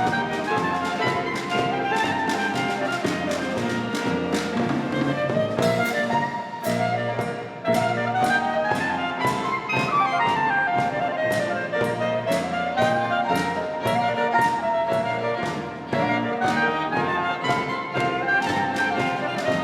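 Klezmer ensemble of violin, clarinet, percussion, piano and acoustic bass playing a cheerful tune, a melody winding up and down over a steady percussion beat.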